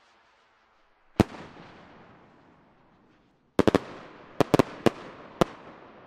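Magellan firework rocket bursting: a single sharp bang about a second in, then a quick volley of about eight sharp reports in small clusters over the next two seconds, each echoing away.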